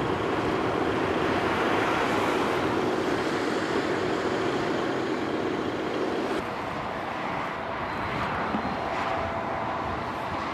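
Steady motorway traffic noise from a queue of lorries and passing vehicles. The sound changes and drops a little about six seconds in.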